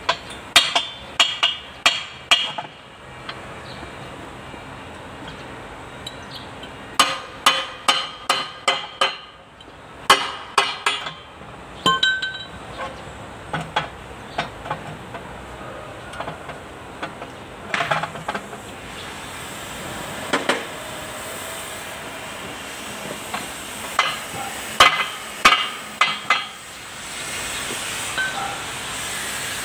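Hammer blows on steel in quick runs of four to six strikes with a short metallic ring, as rotary tiller rotor parts are tapped into place during reassembly.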